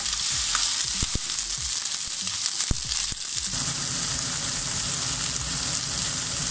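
Chicken thigh pieces and frozen green beans sizzling in a hot frying pan, the icy beans steaming as they hit the rendered chicken fat, with a few light taps in the first three seconds. About halfway through the sizzle takes on a fuller, lower tone.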